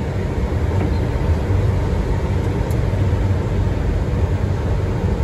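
Boeing 737-800 flight-deck noise on short final approach: a steady low rumble of airflow and engines.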